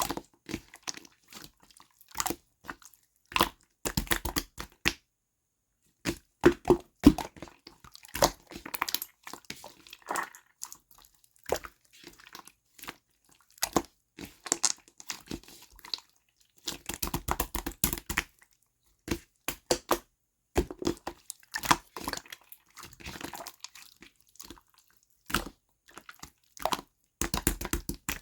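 Slime being squished and worked by hand, making irregular runs of sticky clicks and crackling pops with short pauses between them.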